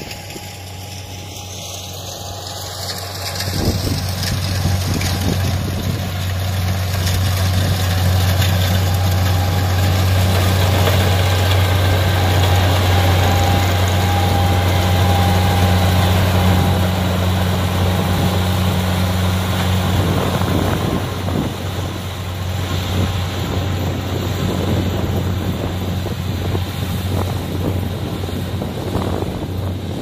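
Kubota DC70 combine harvester's diesel engine running steadily with a deep hum as it harvests rice, growing louder over the first few seconds and then holding.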